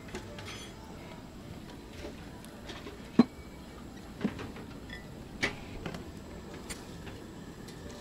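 Several short, sharp knocks and clinks, the loudest a little after three seconds in, from whole fish being handled between a glass bowl and a gas grill's grate, over low steady background noise.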